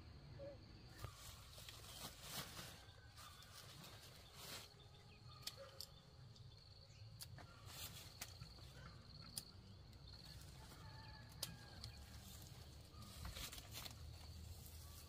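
Near silence: faint outdoor background with a low hum and scattered light clicks and taps.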